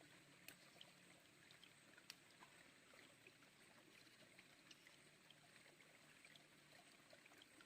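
Near silence: the faint flow of a small river, with a few tiny ticks and two sharper clicks, about half a second and two seconds in.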